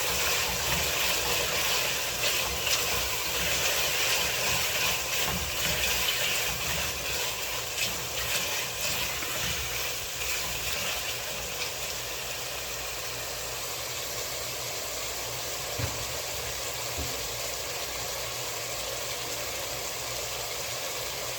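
Titus mackerel frying in hot oil, a steady sizzle that is loudest for the first twelve seconds or so and then eases off a little.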